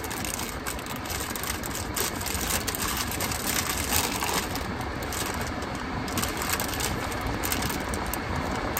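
Popcorn snack bag crinkling and crackling continuously as hands tug and twist at it, trying to tear it open; the bag is hard to open.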